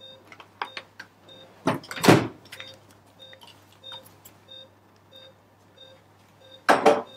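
Patient monitor's pulse oximeter beeping steadily, one short beep about every 0.6 seconds, with the saturation probe on the patient's finger. Two brief, louder bursts of rustling handling noise come about two seconds in and near the end.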